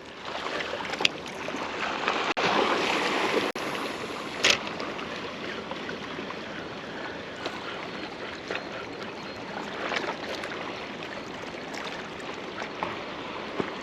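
Steady water noise, with a louder surge of splashing about two seconds in and a sharp click at about four and a half seconds. The splashing is tarpon crashing schools of mullet at the surface.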